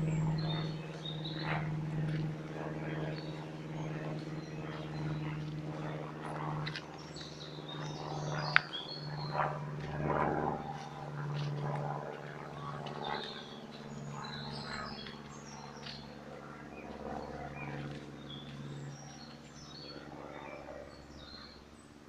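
Footsteps on a woodland dirt path, with small birds chirping and a steady low hum throughout. A single sharp click about eight and a half seconds in.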